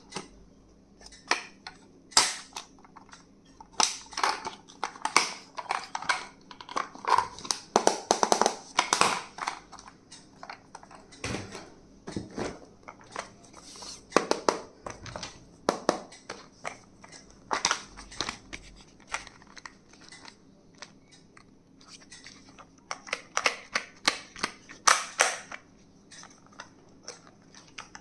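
Stationery and its plastic packaging being handled during an unboxing: irregular clicks, taps and crinkles, coming thickest about a quarter of the way in and again near the end.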